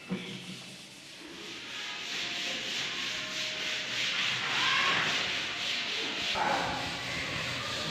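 A steady rasping, rubbing noise that builds up over the first couple of seconds and then holds.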